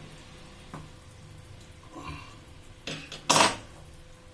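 Steel inner vessel of a pressure cooker knocking against the tongs and the cooker. There are a few light clinks, then one loud metallic clatter near the end that leaves a steady ringing tone.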